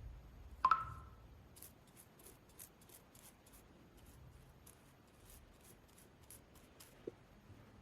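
Toothbrush bristles scrubbing over an iPhone's speaker grille: a string of faint, scratchy strokes, about two to three a second. A light knock with a short ring comes under a second in.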